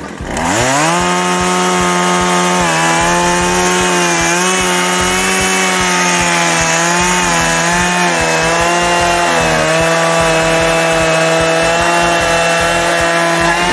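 Petrol chainsaw opened up to full throttle and held there while cutting through a log in the water. Its pitch dips slightly a few times under load and drops away at the end as the throttle is released.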